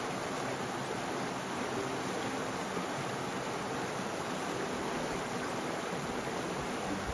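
Steady rushing noise, like a stream or small waterfall, holding an even level throughout.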